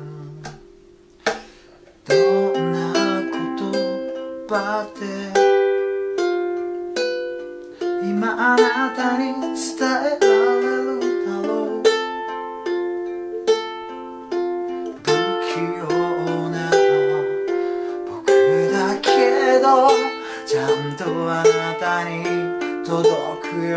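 Ukulele played slowly, picking chord arpeggios (Dm, G7, Am, F) note by note, starting about two seconds in after a short pause. A man's voice sings softly over it from around eight seconds.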